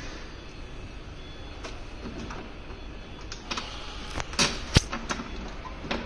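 Scattered metal and plastic clicks and knocks as parts and a hand tool are handled in the front end of an electric scooter during assembly, with one sharp knock a little before the end, over a steady low factory hum.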